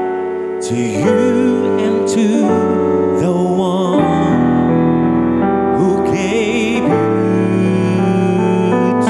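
A man singing a slow ballad into a microphone over piano accompaniment, holding long notes with vibrato.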